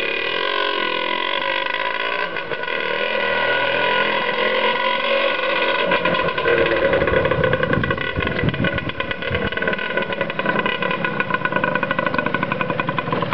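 Kawasaki KMX125R's single-cylinder two-stroke engine running on its own at a fairly steady fast idle while still cold, its firing strokes growing sharper about halfway through.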